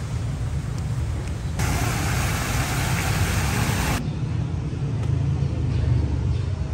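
Outdoor background noise: a steady low rumble, with a louder hiss from about one and a half seconds in that cuts off suddenly about four seconds in.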